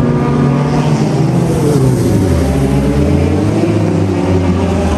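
Several Super FJ formula race cars' engines running hard on track, overlapping; their pitch drops about two seconds in as they pass or lift off, leaving a strong low engine drone.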